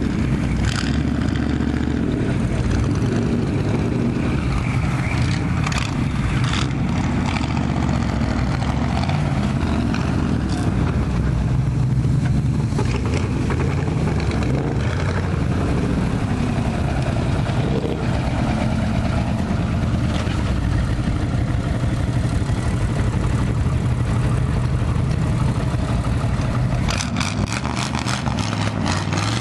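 A motor-vehicle engine running steadily close by, with a few short clatters, most of them near the end.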